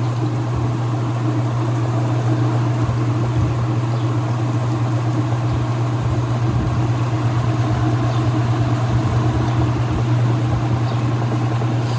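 Whirlpool Direct Drive washing machine in its spin cycle: the drive motor and drain pump running with a steady, loud hum.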